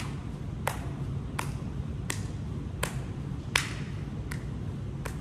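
Hand claps from seal jacks, sharp and evenly paced at about one clap every 0.7 seconds, over a steady low hum.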